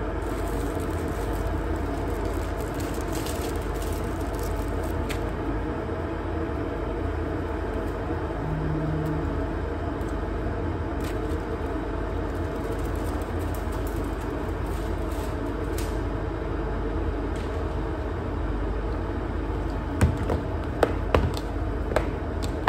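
A steady low rumble throughout, with faint crinkles of a plastic zip bag being handled. About twenty seconds in come several sharp plastic clicks as the lid of a plastic food container is worked.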